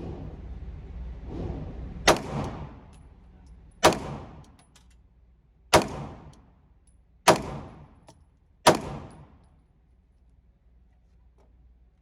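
Five pistol shots from a Glock 19 9mm, fired at an unhurried pace about one and a half to two seconds apart, each a sharp crack with a short echo.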